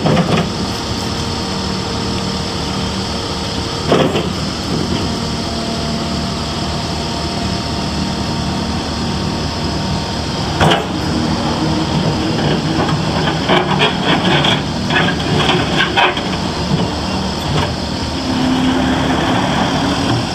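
Case TR340 skid steer's diesel engine running steadily, its pitch shifting a couple of times as the revs change. Sharp knocks and a run of clanks from the machine sound over the engine, most of them in the second half.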